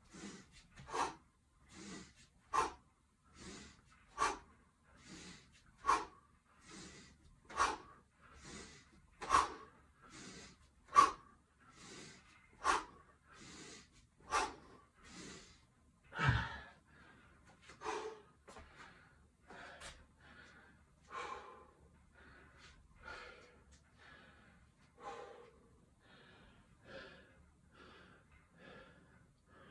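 A man's sharp, forceful exhales, one at the top of each one-hand kettlebell swing, about every 1.7 seconds, with softer in-breaths between. About 16 seconds in a thump comes as the kettlebell is set down on the mat, followed by heavy recovery breathing that slowly eases.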